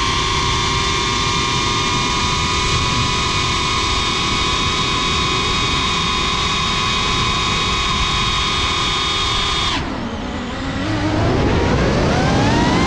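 Cinelog 35 FPV quadcopter's brushless motors and propellers whining steadily at a high pitch, picked up by the GoPro on board. About ten seconds in, the whine drops away suddenly as the throttle is cut, then rises steadily in pitch as the motors spool back up.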